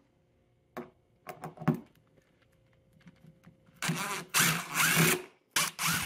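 Cordless DeWalt power driver running in two short bursts, about four seconds in and again near the end, backing out the two screws of a refrigerator's top freezer-door hinge. A few light clicks come about a second in, before the driver runs.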